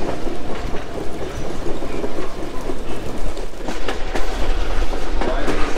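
Passenger train coach rolling along the rails, a steady running rumble heard from the open coach window. From about halfway through, the wheels give a run of sharper clacks over the rail joints.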